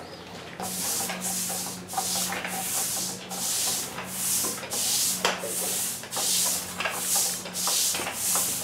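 Push broom scrubbing over wet, color-washed stamped concrete in quick back-and-forth strokes, about two a second, each a hissing scrape of bristles on the textured surface. A faint steady low hum lies underneath.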